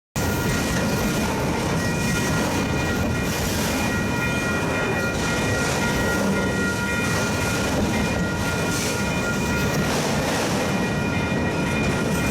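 Steady vehicle noise, a rumble and hiss with several faint steady high tones, cutting in abruptly at the start and running unchanged.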